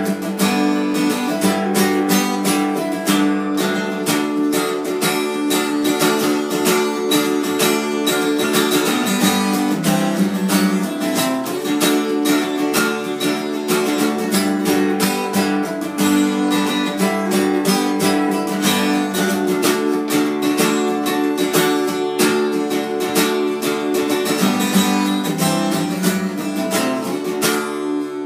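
Acoustic guitar strummed in a steady rhythm of chords. The strumming stops near the end, leaving the last chord ringing.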